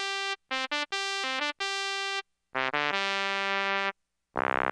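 Technics SX-K200 keyboard's trumpet solo-synth voice playing a phrase of short, separate notes, then a few quick notes leading into a held note. Near the end a different sustained, buzzier synth tone begins, with a wavering sweep in its upper range.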